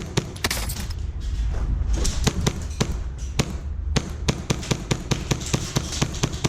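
HPA-powered airsoft guns firing, a run of sharp cracks at about four or five shots a second with brief pauses, over a steady low rumble.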